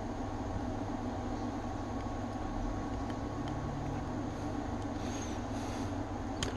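Steady background hum with a constant low drone, and a single light click near the end.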